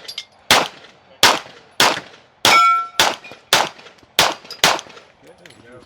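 A string of rapid pistol shots from a Glock, about eight evenly spaced roughly 0.6 s apart, ending a little under five seconds in. One shot about halfway through is followed by a brief metallic ring.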